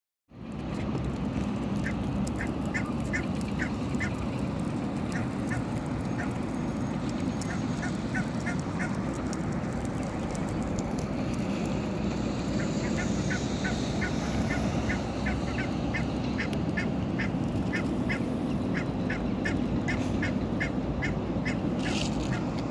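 A flock of domestic fowl calling, with short quacking or clucking calls repeated in quick clusters over the steady din of many birds.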